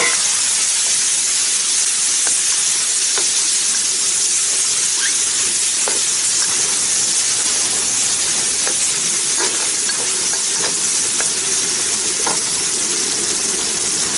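Side vegetables stir-frying in hot oil with bean paste: a steady sizzle, with light scrapes and taps of the spatula now and then.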